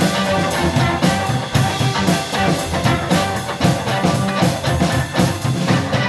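Live blues band playing: electric guitar, upright double bass and a drum kit keeping a steady beat, with a harmonica blown into a hand-cupped microphone.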